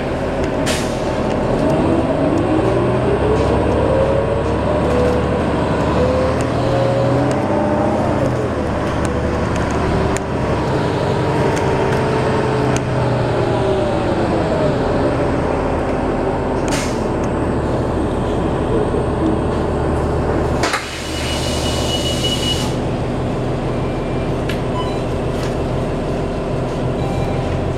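Diesel engine and drivetrain of a 2008 New Flyer D40LF transit bus heard from inside the cabin, with a whine that rises as the bus picks up speed and falls away as it slows. About 21 seconds in there is a sudden two-second hiss of released air, then the engine runs on steadily.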